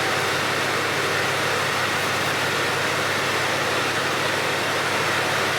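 A 2005 Duramax pickup being driven on its newly rebuilt lift: a steady hiss of engine and road noise with no knocks or clunks.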